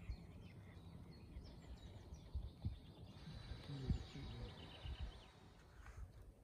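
Faint songbirds chirping and twittering, with a quick run of rapid chirps about two-thirds of the way through, over an uneven low rumble. The birdsong fades out just before the end.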